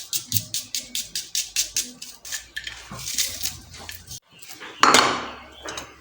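Quick, even clicks of kitchen utensils, about five a second. They stop, and near the end comes one louder scraping rush.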